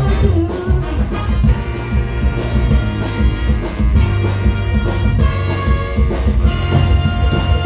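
Live youth wind band (trumpets, saxophones, flutes, sousaphone and drum kit) playing a loud, upbeat brass number with a strong bass and drum beat, breaking off at the very end.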